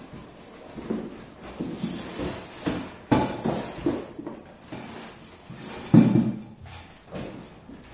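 Polystyrene foam packing insert scraping and creaking against a cardboard box as it is pulled out, in irregular rubs with two louder knocks, about three seconds in and again about six seconds in.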